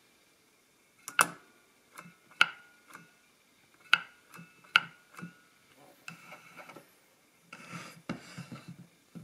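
Triumphator KA mechanical adding machine's mechanism clicking as the clearing button is worked: about eight sharp metallic clicks, each with a brief ring, as spring-loaded parts snap back. Near the end comes a rattle and scraping as the machine is shifted on the table.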